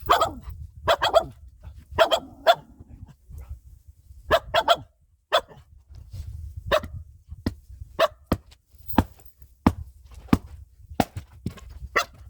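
A dog barking repeatedly in short, sharp barks about every half second to a second, sped up to double speed.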